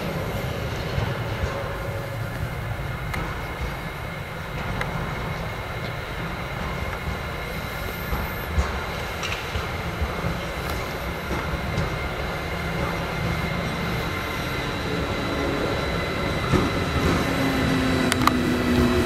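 PKP Cargo Siemens Vectron electric locomotive 193-503 running light toward the listener: a low rolling rumble with a steady high whine, growing louder near the end as it comes close.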